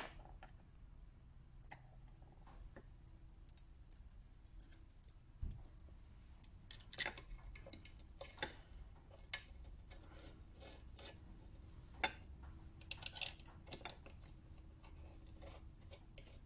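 Metal parts of a Ford C4 automatic transmission being handled and fitted by hand: irregular light clicks and taps of metal on metal, with one dull thump about five seconds in.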